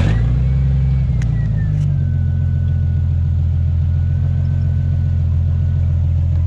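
Jeep engine catching just after cranking, then idling steadily. The idle settles lower about two seconds in, and a faint whine drifts slightly down in pitch as it settles.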